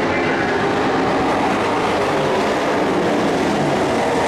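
Engines of several dirt-track racing pickup trucks running at speed together, a loud, steady, dense rumble.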